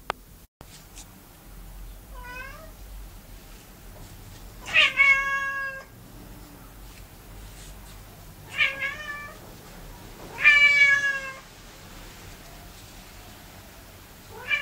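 Domestic cat meowing four times, drawn-out calls that bend in pitch. The first is faint; the loudest come about five and ten seconds in.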